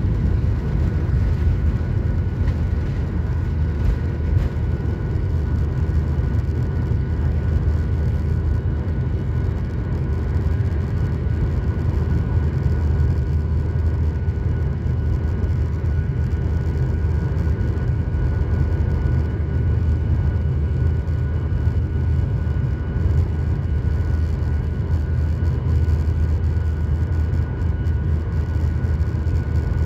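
Boeing 737 turbofan engines at climb power, heard from inside the passenger cabin beside the wing: a steady low rumble with a faint, steady whine over it as the jet lifts off and climbs.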